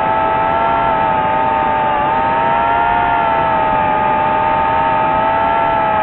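Small drone's electric motors and propellers whining steadily in flight, the pitch drifting slightly up and down.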